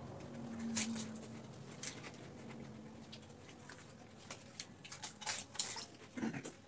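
Two people eating pani puri (fuchka) fast: crisp puri shells cracking in the mouth and tamarind water slurped in, as scattered sharp crunches and short sucking hisses that come thicker near the end.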